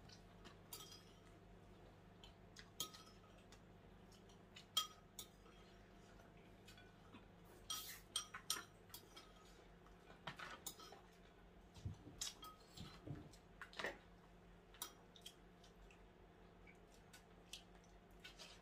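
Eating utensils clinking and tapping on plates, bowls or cups during a meal: scattered light clinks, with a sharper one just under five seconds in and a busier run of clinks between about eight and fourteen seconds.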